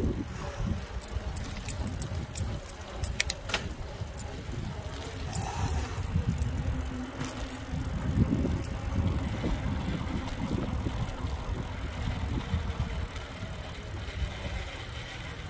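Bicycle riding along a concrete path: a steady low rumble of wind and tyre noise, with light rattling clicks from the bike, most of them in the first few seconds.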